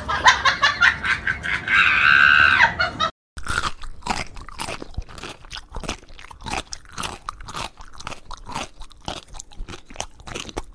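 A cat chewing: a long run of irregular crunching clicks. It is preceded by a louder noisy stretch with a high whine around two seconds in, and a brief silence.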